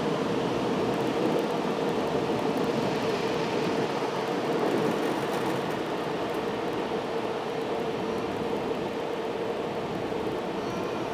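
Car wash air-dryer blowers running: a steady rush of air with a hum underneath, slowly fading as the car pulls away from them.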